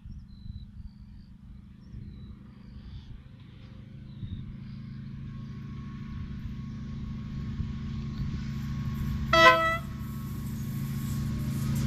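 Freight train locomotive approaching, its engine hum growing steadily louder. A short, loud horn toot sounds about three-quarters of the way through.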